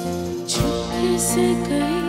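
A boy singing a slow Hindi film song into a microphone over instrumental accompaniment. His voice comes in about half a second in.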